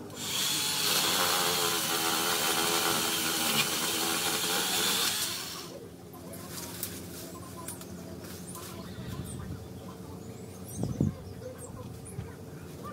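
Worx WG368E 40V cordless electric chainsaw cutting into a branch, running loud for about five and a half seconds and then stopping; its chain is no longer sharp, by the owner's account. After it come a fainter steady hum and a brief low thud near the end.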